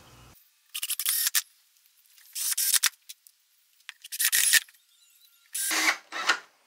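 Cordless drill driving screws into a plywood box panel in five short bursts, with a couple of small clicks between them.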